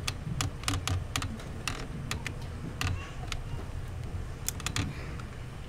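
A large standing crowd fidgeting in a hall: irregular sharp clicks and light knocks, a few close together, over a low steady rumble of room noise.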